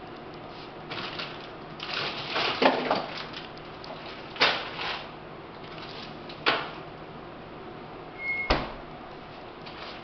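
Kitchen refrigerator opened and items shuffled about inside, with a few sharp knocks, then the door thudding shut about eight and a half seconds in.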